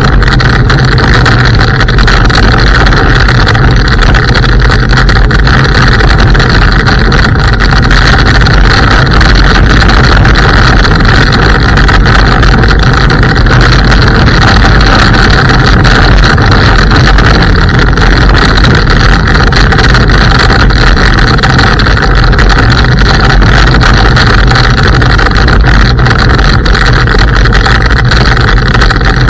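Steady, loud rolling noise of an IO Hawk Legend electric scooter riding over a gravel forest path, the tyre rumble and rattle picked up by a camera mounted low beside the wheel.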